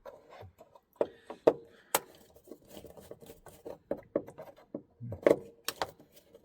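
Hand-tool work on fittings: a series of sharp clicks and light knocks, the loudest about 1.5 and 2 seconds in and again a little after 5 seconds.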